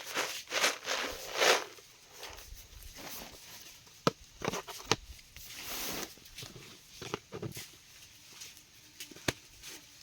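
Rustling and brushing sounds, loudest in the first two seconds, with a few sharp snaps or clicks about four seconds in, a second later, and again near the end.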